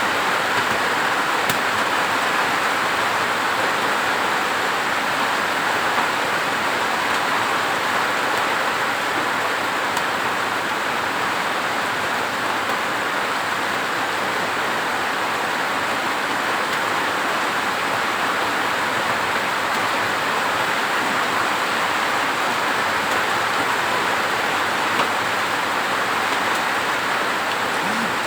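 Steady rain falling, an even hiss that stays constant, with a few faint taps.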